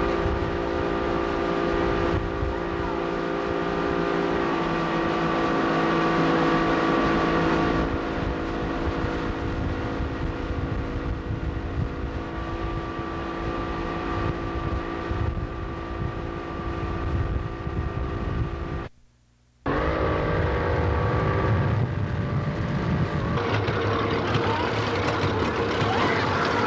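Tow boat's engine running steadily at speed, with wind and water noise, while pulling a water-skier. The sound drops out abruptly for under a second about two-thirds of the way through, then the engine is heard again.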